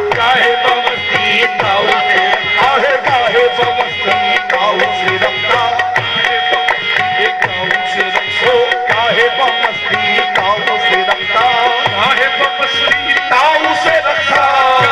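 Live qawwali music: tabla beating a steady, dense rhythm under harmonium chords and singing voices.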